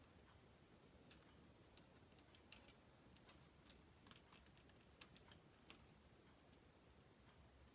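Faint, irregular clicks of plastic K'Nex connectors being worked on and off their rods by hand, about half a dozen over several seconds.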